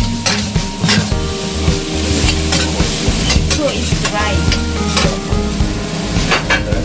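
A metal spatula scrapes and tosses deep-fried crayfish and garlic around a sizzling stainless steel wok, with irregular scrapes and clinks over the frying hiss.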